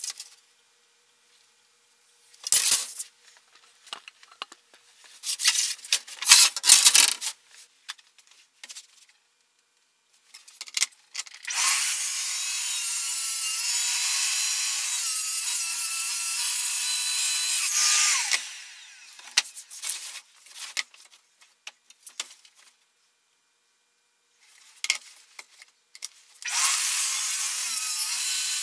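Plunge track saw running and cutting through plywood along an aluminium guide rail, a steady saw noise lasting about seven seconds before it winds down. A second cut starts near the end. Before the first cut there are a few sharp knocks and rattles as the tools and rail are handled.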